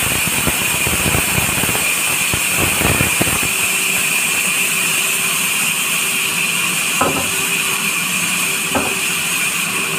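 Large band saw running with a steady high whine while it rips a neem plank, the rough cutting noise lasting about the first three and a half seconds. After that the blade runs free, and there are two short wooden knocks near the end.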